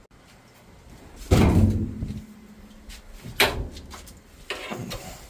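Heavy clunks and knocks as the rock saw is opened and the freshly cut halves of the agate nodule are handled: two loud bangs, the first with a short ring, then a few lighter knocks near the end.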